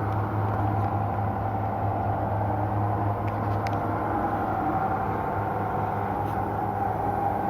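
Steady mechanical hum with a low drone and a higher steady tone above it, unchanging throughout, with a few faint clicks about halfway through.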